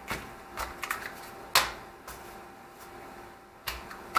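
Small metal bicycle tools being handled and set down on a tool roll and a digital kitchen scale: a string of separate clicks and knocks, the loudest about one and a half seconds in.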